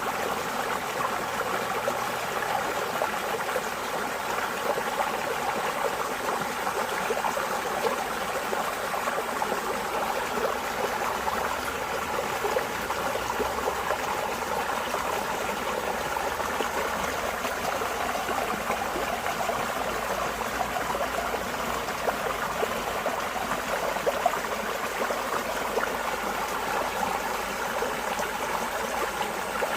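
Running water of a stream, flowing steadily and evenly with no breaks or changes.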